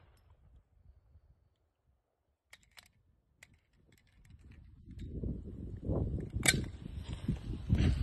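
A few faint clicks, then a low rumble that builds up, with one sharp crack about six and a half seconds in.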